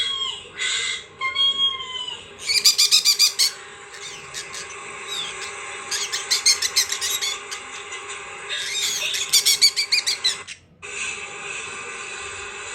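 Pet birds chirping in three bursts of rapid, high-pitched calls, over a steady hum.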